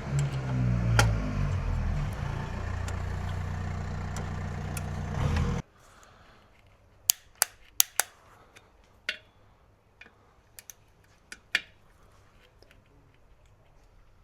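Workshop noise: a loud, steady mechanical running sound with a wavering low hum cuts off suddenly about five and a half seconds in. It is followed by a dozen sharp metallic clicks and taps of tools being handled.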